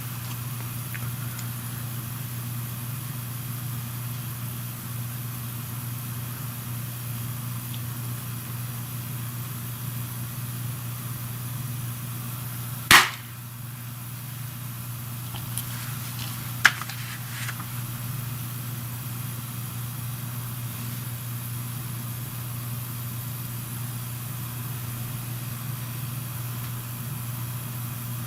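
Steady low hum, with one sharp click about thirteen seconds in and a few smaller clicks a few seconds later.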